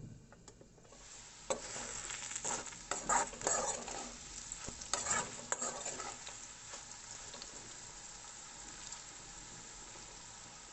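Potatoes frying in oil in a pan, sizzling, with a spatula scraping and knocking against the pan as they are stirred for the first few seconds. The sizzle builds about a second in and then carries on steadily.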